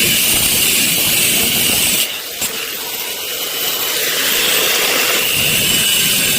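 Angle grinder working steel square tube with a steady high whine and grinding noise. It eases off about two seconds in, then builds back up as the disc bites again.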